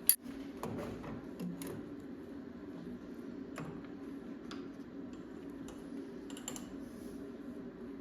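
Light metallic clicks and taps at irregular intervals from a workpiece and tools being handled at a small metal lathe, over a steady low hum, with one sharp loud click right at the start.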